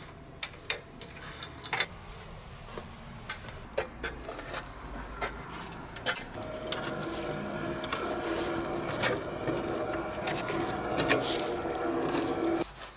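Clicks, knocks and scrapes of hands and boots on an aluminium ladder and a rain gutter, as wet leaves and muck are dug out of the clogged gutter outlet. Running, gurgling water is heard under them, with a steady hum from about six seconds in.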